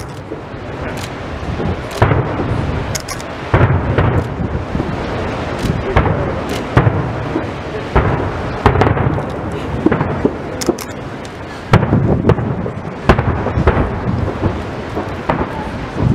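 Aerial firework shells bursting one after another, a sharp bang every second or so, each trailing into a low rolling rumble.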